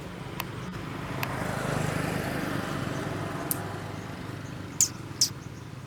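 A road vehicle passing by: its noise swells to a peak about two seconds in and then fades away. A few short, sharp clicks are scattered through it.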